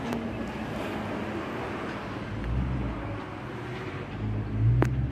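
Road traffic with a motor vehicle's engine running. The low engine rumble swells a couple of seconds in and again near the end, and a brief sharp sound comes near the end.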